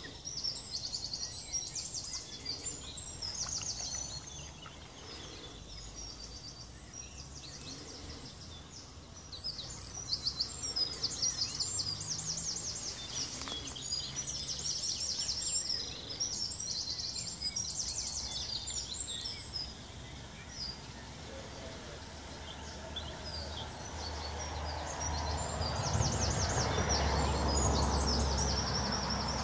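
Songbirds singing short repeated trilling phrases, with one sharp click about halfway through and a rushing noise that swells over the last few seconds.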